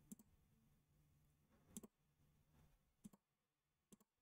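A few faint computer mouse clicks, single clicks about a second apart, over near silence.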